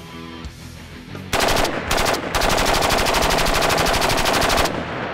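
HK-93 rifle in 5.56 firing rapid strings of shots: a short burst about a second and a half in, a second brief burst, then a long unbroken string of about two and a half seconds that stops near the end, followed by a short echo.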